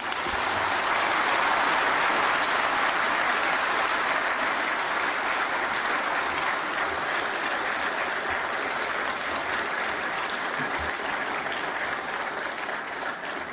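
Audience applauding: steady clapping that begins at once and tapers off near the end.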